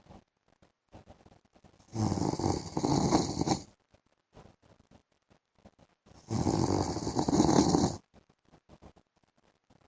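A man snoring: two snores about four seconds apart, each lasting nearly two seconds.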